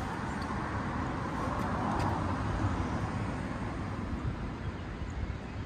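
Steady outdoor rumble and hiss, heaviest at the low end and easing slightly toward the end.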